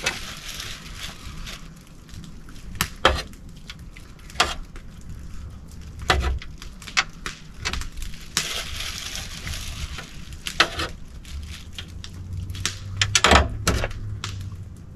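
Knife work on grouse carcasses on a metal table: scattered clicks and knocks of the blade and birds on the steel, with stretches of tearing and rustling as skin and feathers are pulled off the breast meat. A louder cluster of knocks comes near the end.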